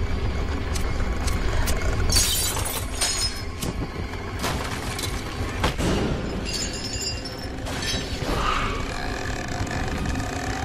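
Horror film sound design: a steady low drone under a string of sharp cracking and breaking hits. The hits are loudest about two seconds in.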